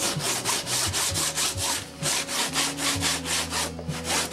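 40-grit sandpaper on a hand sanding block rubbed back and forth over a carbon fiber muffler, a steady scratchy stroke about four times a second, grinding the cured resin off the surface without cutting into the carbon.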